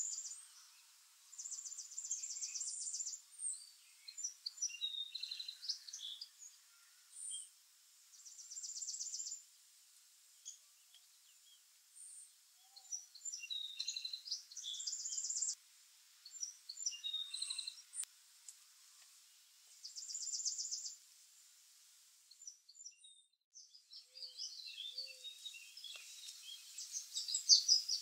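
Black-capped chickadees calling at a seed feeder: scattered short high chirps, with a rapid high trill about a second long repeating every five or six seconds. A burst of louder, close chirping comes near the end.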